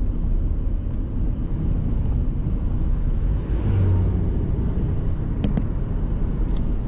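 A car driving: a steady low rumble of engine and road noise, with a brief click about five and a half seconds in.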